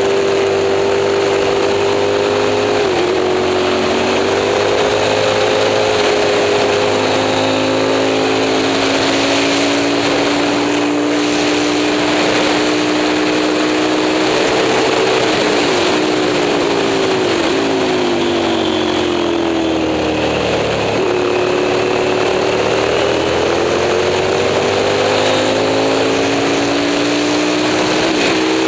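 Moto Morini 350 V-twin racing engine running hard at high revs. Its pitch holds and creeps up through each gear, drops in several quick steps about halfway through, then climbs steadily again, with brief breaks in pitch at the gear changes.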